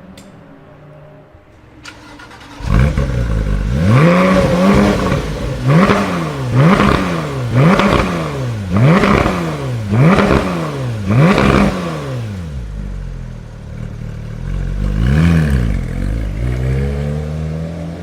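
A high-performance car engine starts up about three seconds in and is then revved repeatedly, about seven quick blips roughly a second apart, each climbing and falling in pitch. It drops back to idle, is revved once more, and rises again near the end.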